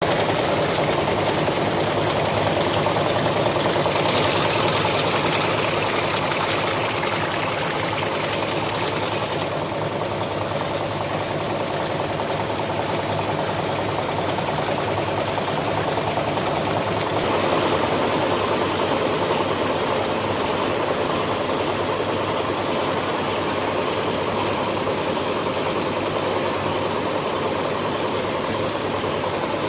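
High-speed nail making machine running, a fast, steady mechanical clatter of rapid repeated strokes.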